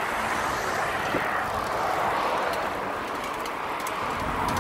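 Steady rushing noise of riding a bicycle along a paved path: wind over the microphone and tyres rolling on asphalt.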